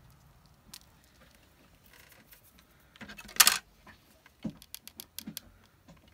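Hands handling small craft embellishments on a desk: a brief rattling clatter a little over three seconds in, then several light clicks.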